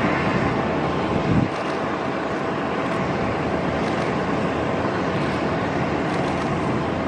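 Boeing 787-9 airliner on final approach to land, its twin jet engines giving a steady rushing noise with a faint steady whine, and a brief low rumble about a second in.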